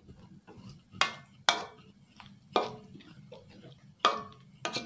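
A ladle scraping and knocking against an aluminium kadai as a thick curry is stirred: about five sharp strokes at uneven intervals.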